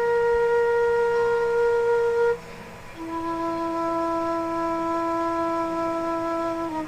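Long held musical notes of unwavering pitch: a note held until about two and a half seconds in breaks off, and after a brief gap a lower note is held until just before the end.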